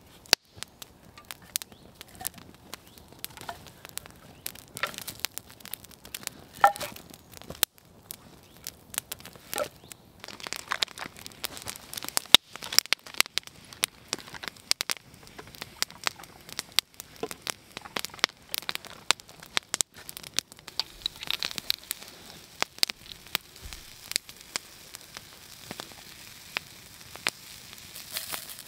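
Wood fire crackling, with irregular sharp pops and snaps.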